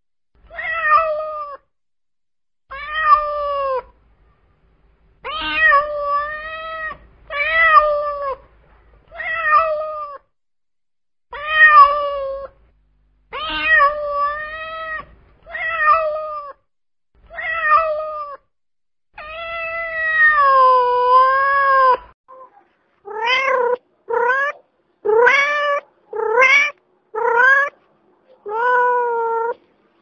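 Domestic cat meowing over and over, a string of separate calls about a second long, with one longer, drawn-out meow about three-quarters of the way through. Near the end come quicker, shorter meows that rise in pitch, about one a second.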